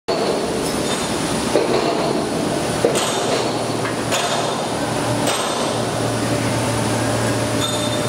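Automatic rectangular duct production line running: a steady mechanical noise with sharp metal clanks about once a second, and a low hum setting in about five seconds in.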